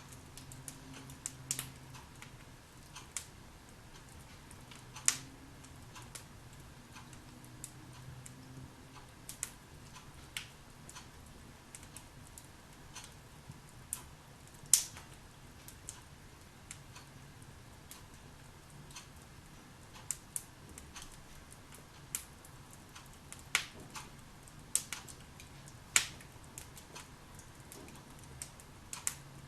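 Wood fire burning in a fireplace: irregular crackles and sharp pops from the logs, a few pops much louder than the rest.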